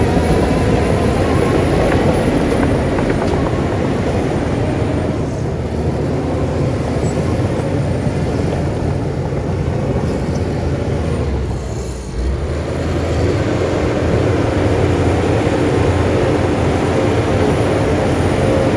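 Heavy diesel engine of earthmoving machinery working steadily under load. It eases off briefly about two-thirds of the way through, then picks up again.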